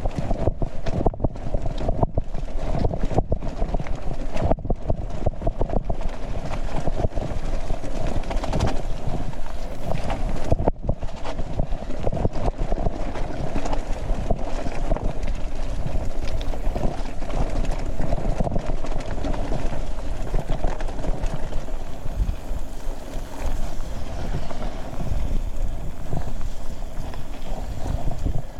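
Mountain bike descending fast, heard from a GoPro on the bike or rider: constant wind rush on the microphone mixed with tyre noise, and frequent knocks and rattles from the bike over rough ground.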